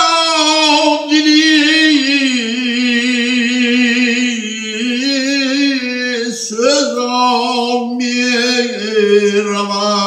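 A man singing an unaccompanied chant into a microphone, holding long wavering notes that slide from pitch to pitch, with a short break for breath about six seconds in.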